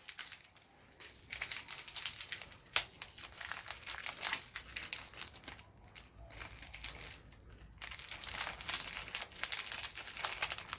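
Plastic packaging crinkling as a chain master-link kit is opened and its parts handled, in spells of crackling with brief pauses.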